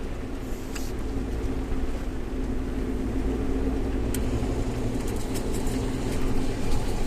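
Suzuki Jimny JB64's 660 cc turbocharged three-cylinder engine running steadily while the vehicle drives along, with a low hum and a few faint ticks.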